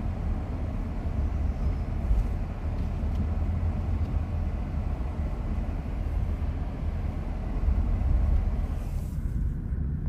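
Steady low rumble of a car's road and engine noise heard from inside the cabin, driving on a snow-covered street. The higher hiss drops away near the end.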